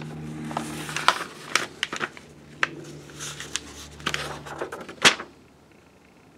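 Pages of a paper instruction manual being turned and handled: a run of crisp rustles and crackles, the loudest a sharp paper swish about five seconds in.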